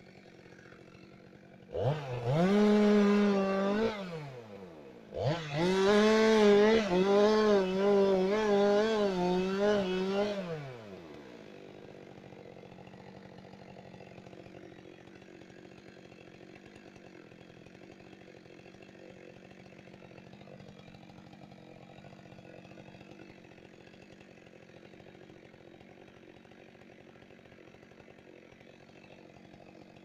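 Two-stroke chainsaw revved to full throttle twice, a short burst and then a longer cut of about five seconds whose pitch wavers as it bites into the wood. After that it drops back to a quiet idle.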